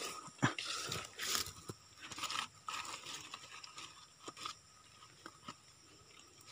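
Dry palm fronds and leaf litter crunching and rustling under a hand, with scattered crackles. The crackling is busiest in the first few seconds, then thins to a few faint clicks.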